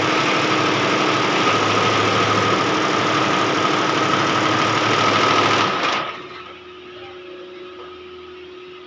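Multi-head computerized embroidery machine running at speed: a loud, steady, dense machine noise from its needle heads, with a steady high whine. About six seconds in, the sound drops abruptly to a much quieter steady hum.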